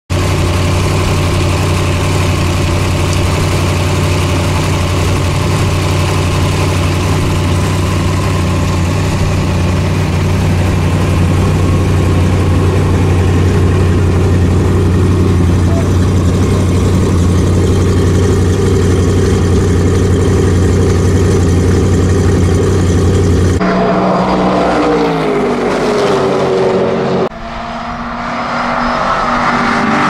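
TVR Griffith's Ford small-block V8, fed by a row of downdraft carburettors, running steadily at idle with an even, unchanging note. About 24 seconds in it cuts to a race car on the circuit passing with its engine note falling, then, after a second cut, a car's engine rising in pitch as it comes up.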